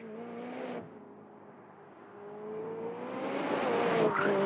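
Sports car's engine running at speed on a track, dropping off briefly just under a second in, then rising slightly in pitch and growing steadily louder as the car draws near.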